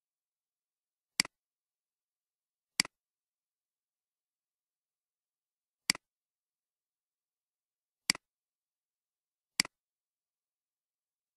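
Computer mouse button clicking five times: single sharp clicks at uneven gaps of one to three seconds, with dead silence between them.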